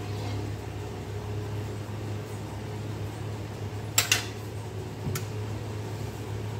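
Thick dal fry simmering in a kadai over a low gas flame, with a quick pair of sharp pops from bursting bubbles about four seconds in and one more a second later, over a steady low hum.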